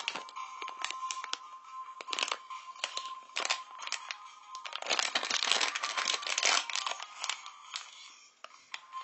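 Crinkly plastic wrapper of a heart-shaped surprise-toy packet crackling as it is squeezed and turned in the hands, in scattered crackles with a dense burst of crinkling from about five to nearly seven seconds in.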